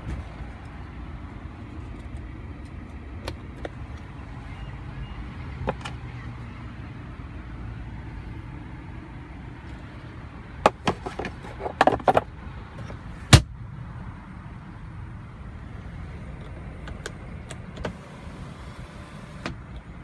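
Sharp plastic clicks and knocks from a car's center-console storage lid being handled, several close together about ten to twelve seconds in and one loudest latch click just after thirteen seconds, over a steady low hum inside the cabin.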